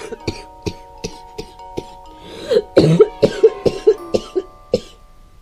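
Background music with steady held notes, with a run of short, sharp bursts over it. The bursts are loudest and most frequent, about four a second, between halfway and near the end.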